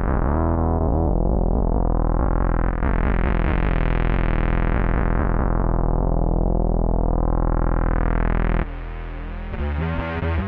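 Bass guitar played through an MXR MB301 Bass Synth pedal: a held synth-bass tone whose filter slowly sweeps down and up again, twice over. About three-quarters of the way through it drops in level and turns to shorter, choppier notes.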